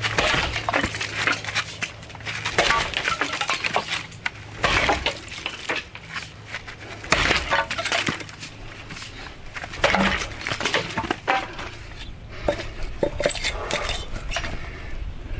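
Axe head of O1 steel, sharpened to a single-sided 30° bevel, chopping into dry, very hard eucalyptus: a sharp strike every two to three seconds, about six in all, with lighter knocks and clinks in between.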